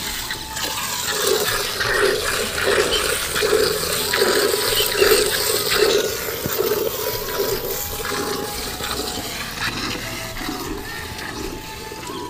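Cow being milked by hand into a metal pail: milk squirting in rhythmic spurts, roughly one every three-quarters of a second, as the hands alternate on the teats.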